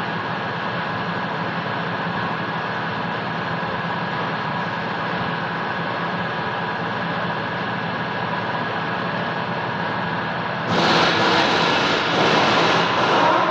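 A steady mechanical hum with a few steady tones runs throughout. About eleven seconds in, a louder hiss joins it for a little under three seconds, dipping briefly twice.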